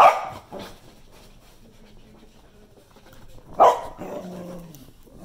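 Dogs play-fighting, with a sharp bark at the start, a smaller one just after, and another loud bark about three and a half seconds in.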